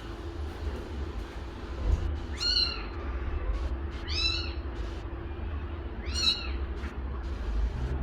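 A kitten meowing three times, in short, high-pitched meows about two seconds apart, each rising and then falling in pitch. A steady low hum runs underneath.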